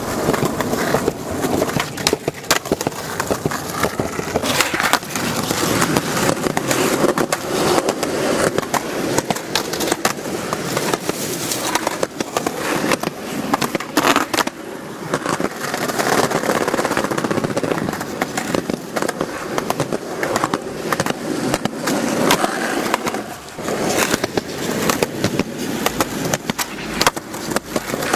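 Skateboard wheels rolling on pavement, broken by many sharp clacks of the board popping and landing, one of the loudest near the middle.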